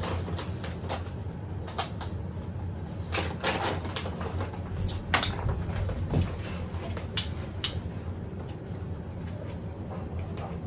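Irregular clicks and taps of a large dog's nails on a hardwood floor as it walks around and turns, over a steady low hum of room noise.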